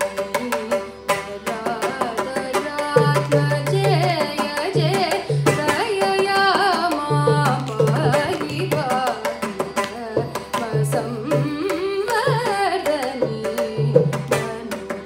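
Carnatic vocal music in raga Madhyamavati: a young female voice sings with sliding, oscillating ornaments, accompanied by steady mridangam strokes, both the dry finger strikes and the deep ringing bass head.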